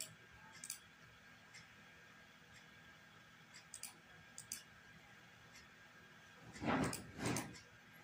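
Sparse short clicks and knocks as moves are made in a fast online chess game: mouse clicks and the game's piece-move sounds. A few faint ticks come early and midway, and two louder knocks follow close together near the end.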